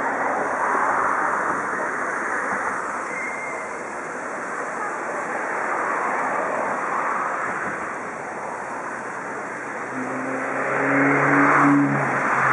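Steady rushing noise over the murmur of a large crowd. About ten seconds in it swells, with a low steady hum underneath.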